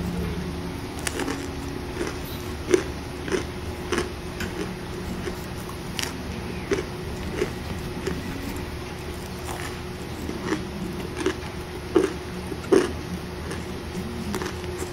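Chunks of cornstarch being crunched with the teeth, irregular sharp crunches every half second to a second, a few louder ones near the middle and end, over the steady hiss of heavy rain.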